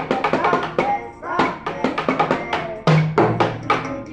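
Music with a busy drum-kit beat: a drum kit played along to a recorded song, with quick strikes throughout and a deep bass note entering about three seconds in.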